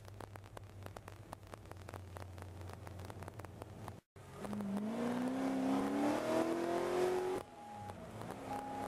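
Supercharged Corvette Z06 V8 running at low speed with a steady low rumble, then a hard acceleration with the engine note rising in pitch for about three seconds. It cuts off suddenly about seven and a half seconds in and drops back to steady running.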